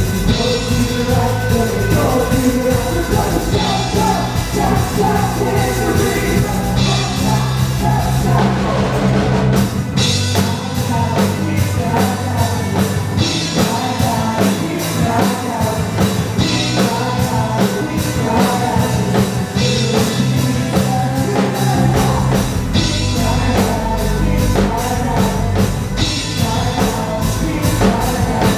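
Live band playing a rock-style song with a lead singer, drum kit and guitars. The deep bass drops away for a stretch in the middle, then returns.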